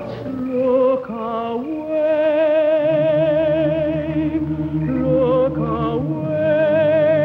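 Dramatic orchestral score music. A high melody of long held notes with a wide vibrato sits over sustained lower chords, stepping upward in the first two seconds.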